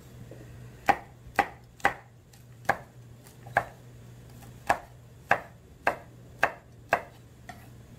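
Chef's knife slicing a red chili pepper diagonally on a wooden cutting board: about ten sharp knocks of the blade against the board, unevenly spaced, the last one faint.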